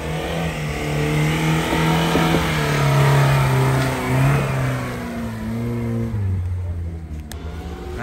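A vehicle's engine revving under load, its pitch wavering up and down, then settling lower about six seconds in.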